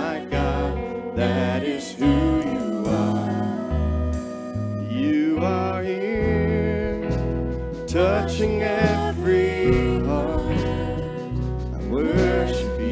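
Live church worship band music: a slow song with bass notes changing about once a second under a singing voice.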